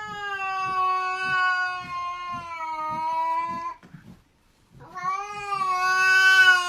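A domestic cat yowling in two long, drawn-out calls, each held at a steady pitch for several seconds, with a short pause between them about four seconds in.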